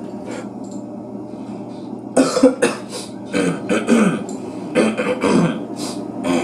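A person coughing hard: a run of loud, repeated coughs that starts about two seconds in and keeps going, coughing their brains out.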